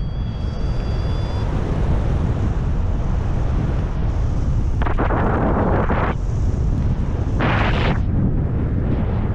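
Airflow buffeting the microphone of a paraglider in flight: a steady low rumbling rush. It swells into two louder gusts, about five seconds in and again about seven and a half seconds in.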